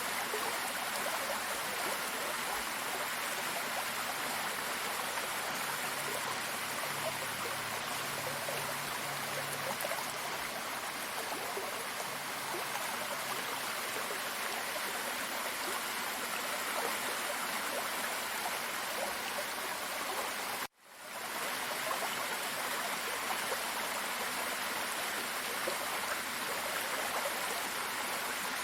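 Steady, even rush of running water from a waterfall. About two-thirds of the way through it cuts out abruptly for a split second and swells back in.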